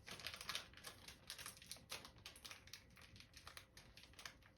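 Faint, irregular crinkling and crackling of a foil baseball card pack wrapper being pulled and picked at by hand to tear it open.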